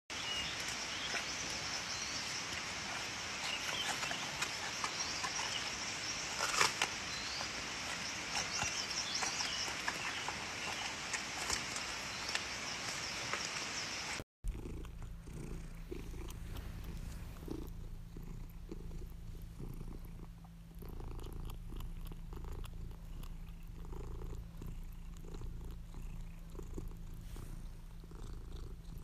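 A giant panda chewing a bamboo shoot, a few crisp bites over a steady hiss. After a sudden cut about halfway through, a domestic cat purring steadily with a low, even rumble.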